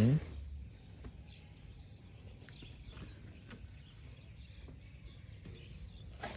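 Quiet outdoor background with faint, scattered bird and insect chirps. It opens with one brief rising vocal sound.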